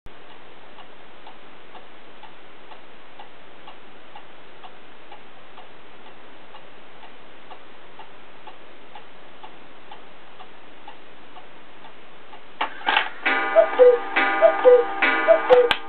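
Black Forest farmhouse-style cuckoo clock ticking steadily. About 12.5 seconds in, its strike mechanism clicks, and the bellows-and-pipe cuckoo then sounds three falling two-note calls as the clock strikes the hour.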